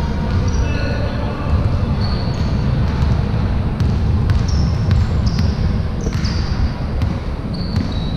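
Basketball game play: sneakers squeaking in short, high chirps on the court and a ball bouncing with sharp thuds, over a steady low rumble of gym noise.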